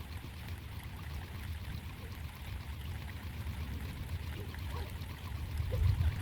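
Steady rain with water running and trickling, over a low rumble on the microphone that swells near the end.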